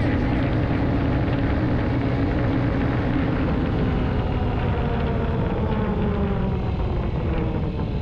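Honda Ruckus scooter engine running steadily at riding speed, mixed with wind and road noise.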